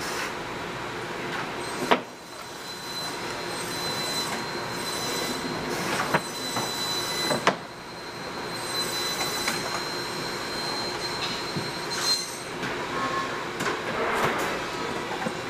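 Cabinet-factory machinery noise with a steady high whine. Three sharp knocks, one about two seconds in and two more between six and seven and a half seconds, come as plywood cabinet panels are handled at the assembly clamp.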